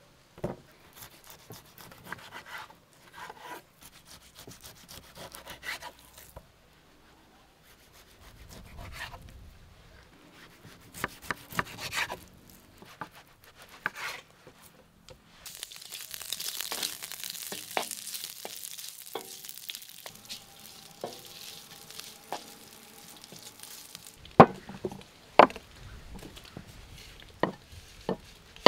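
Kitchen cooking sounds: stirring and scraping with scattered clicks. Food sizzles and fries in a pan through the middle stretch, and a few sharp knocks come near the end.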